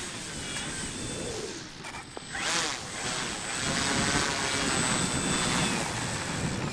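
Electric motor and propeller of an FMS Olympus F3A patternship model aeroplane on its landing approach. The sound sweeps past about two and a half seconds in and stays louder for the next few seconds.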